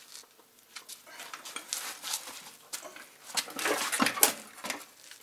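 Metal clanks and scraping as a manual transmission bolted to a stripped 4.6 V8 block is tipped over onto concrete, with a few light knocks and then a loud cluster of clunks about three and a half to four seconds in.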